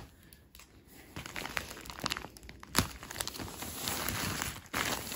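Glossy gift wrapping paper being handled and pulled open by hand, crinkling with scattered sharp crackles. It is quiet for about the first second, then the rustling grows denser.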